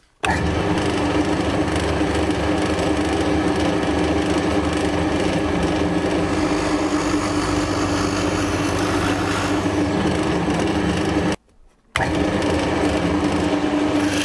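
Drill press motor running while its bit bores holes into multiplex plywood, a steady machine hum with the rasp of the bit cutting wood. The sound cuts out abruptly about eleven seconds in and starts again half a second later.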